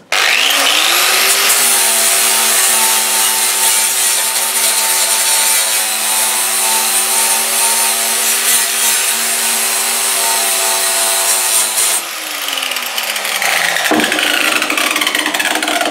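Angle grinder with a 60-grit flap disc spins up and sands the rusty, painted steel deck of a lawnmower down to bare metal, its motor holding a steady whine over a harsh grinding rasp. About twelve seconds in the motor pitch falls away as it winds down.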